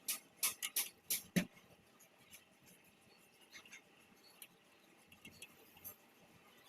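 A quick run of sharp clicks, about three a second, stops about a second and a half in. Faint, scattered ticks and taps follow.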